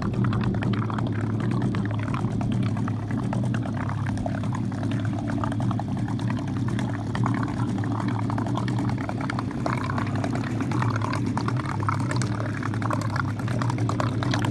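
Small petrol engine of a mini speedboat idling steadily, with water splashing and lapping over it.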